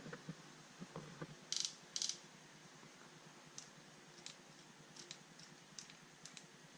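Handling of a Makita XMT03Z cordless multi-tool's plastic body: two short scrapes, then a string of about eight light clicks as its speed dial is turned through its settings.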